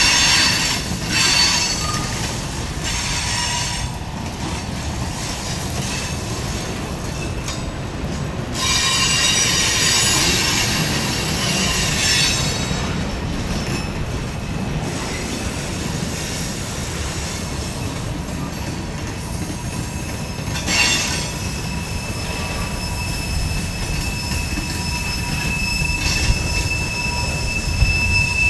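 Freight cars rolling past at close range: a steady rumble of steel wheels on rail, with screeching wheel squeal in stretches near the start and around a third of the way in. About two-thirds through, a thin, steady high squeal sets in and holds.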